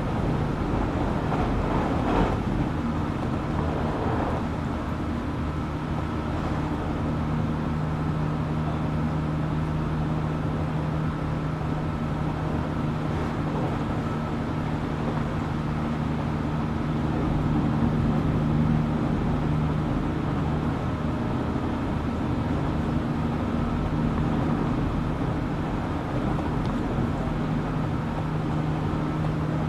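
Running noise inside a JR Kyushu 817 series electric train at steady speed: a steady hum of several held tones over rolling noise, with two knocks in the first few seconds. This car is known for an unusual running noise likened to a Keio 7000 series train.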